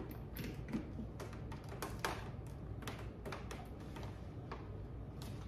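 Scattered light taps and clicks with a few short swishes: a microfiber cloth wiping a granite countertop while a coffee maker is shifted and knocked on its drawer stand.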